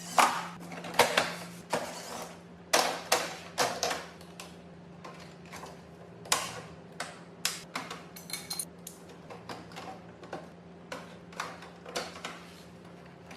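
Irregular sharp knocks, taps and clatter of tools and hardware being handled, over a steady low hum.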